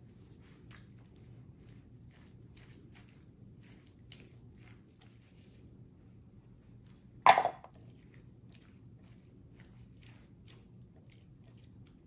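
Close-up chewing with faint crunching clicks while fresh salsa is tasted, over a low steady background hum. About seven seconds in there is one brief loud burst.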